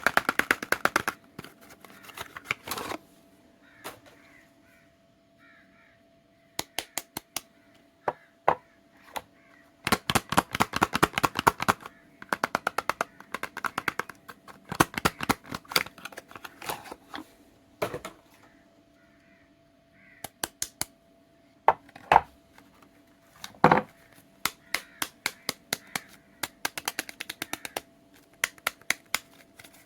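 Soap and its packaging being handled close to the microphone, making bursts of rapid sharp clicks and crackles with short pauses between them, over a faint steady hum.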